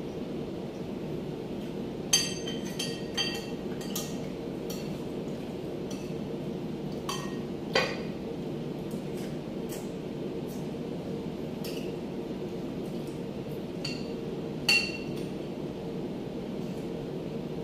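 Spoons and forks clinking against plates while eating: scattered sharp clinks with brief ringing, a few louder than the rest, over a steady low hum.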